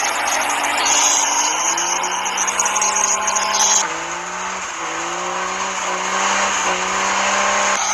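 Car engine revving hard under load, its pitch climbing slowly, dropping about four seconds in, then climbing again.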